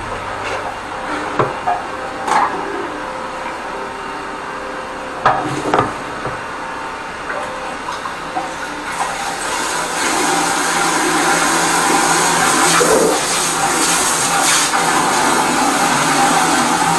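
A high-pressure drain jetter with a turbo drill nozzle is running down a squat toilet's drain to clear a blockage. It makes a steady rush of water and pump noise, with a few short knocks in the first six seconds. The noise gets louder about ten seconds in.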